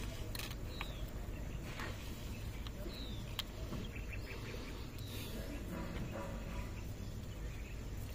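Steady low background rumble with a few short, high, falling bird chirps and scattered faint clicks.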